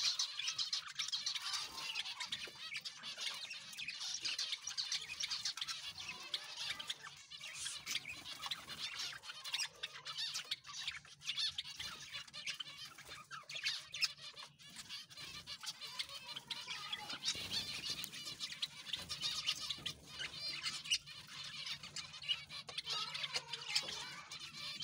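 A flock of Java sparrows chirping and twittering, many short calls overlapping, busiest at the start and near the end. A faint steady low hum comes in about two-thirds of the way through.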